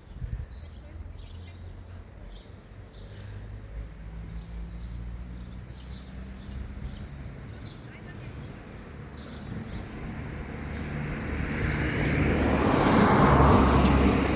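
Small birds chirping in short high calls over a low steady rumble. From about ten seconds in, a vehicle approaches and passes, growing loudest near the end and drowning out the birds.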